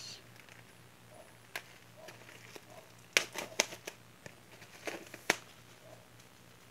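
Plastic shrink wrap crinkling and a cardboard CD album case being handled as the wrap comes off, a few sharp crackles and taps, bunched about three seconds in and again near the five-second mark.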